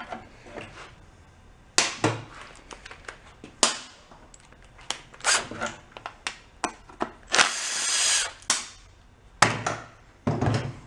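Cordless power driver running for just under a second, about seven and a half seconds in, to back out a bolt on a Kohler twin engine, among sharp clanks and clatter of metal parts and tools handled on a steel workbench. Two heavier knocks near the end.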